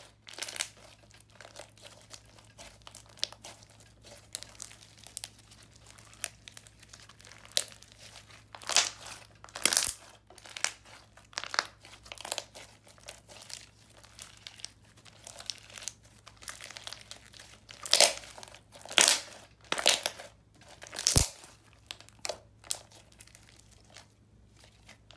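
Thick, creamy slime with small foam beads being squished, folded and stretched by hand, giving irregular sticky crackles and bubble pops. The pops come in louder clusters about a third of the way in and again in the last third.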